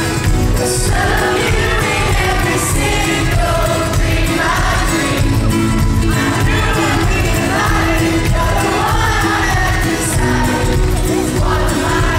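Live pop-rock band playing loudly, with a strummed ukulele and a man singing lead, heard from among the audience.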